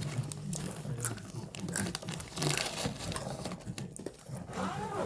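Plastic snack wrappers crinkling and rustling as they are handled, with small clicks throughout and a louder rustle about halfway through.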